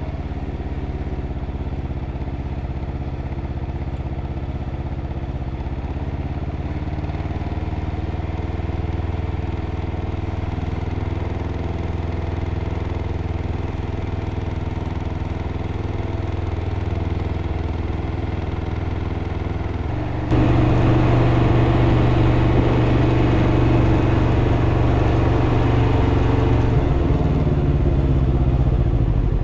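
2021 Can-Am Ryker 600's Rotax 600 ACE twin-cylinder engine running, with a knocking noise that the owner takes for engine knock. About twenty seconds in it suddenly gets louder and revs a little higher, then eases back down near the end.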